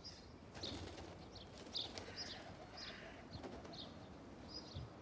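Birds chirping: a run of short, high chirps, about two a second.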